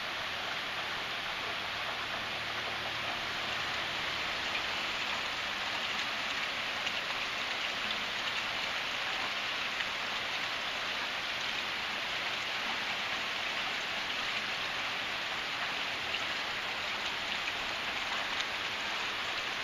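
A soaking rain falling steadily on a tin roof, heard from under the roof as an even hiss of many drops.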